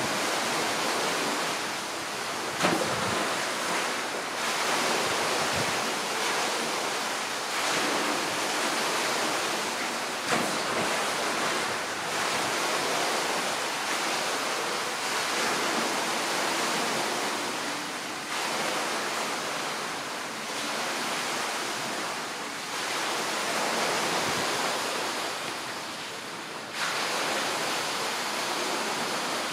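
A steady rushing noise that swells and fades slowly, with a brief knock about two and a half seconds in and another around ten seconds in.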